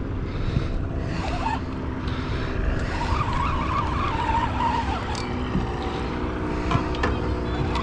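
A boat motor running steadily under wind noise on the microphone, with a wavering whine for a couple of seconds in the middle.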